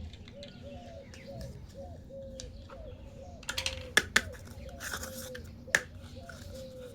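Small plastic toy kitchen pieces being handled: a few sharp clicks and taps, the loudest about four seconds in, over a faint run of short repeated tones.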